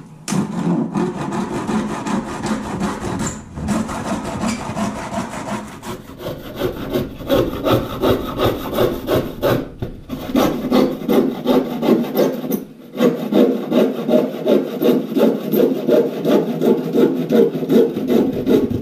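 Hand saw cutting through a wooden board with rhythmic back-and-forth strokes, about two a second, pausing briefly twice along the way.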